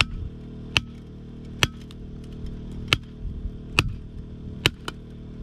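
A hand sledgehammer strikes a steel wedge six times, about once a second, driving a feather-and-wedge set into a drilled hole to split a boulder that is already cracking. A steady low hum runs underneath.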